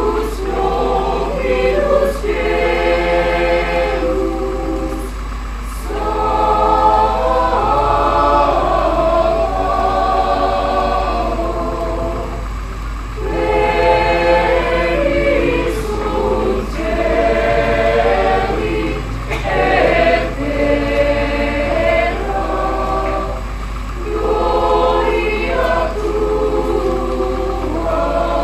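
Mixed choir of women's and men's voices singing a church choral piece in parts, in sustained phrases broken by short pauses for breath.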